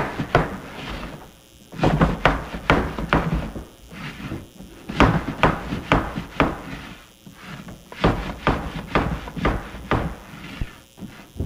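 Silage shaker box (stacked particle-size sieves) being shaken back and forth on a table, the trays knocking and thudding in quick runs with short pauses between sets, as a chopped silage sample is sorted by particle length.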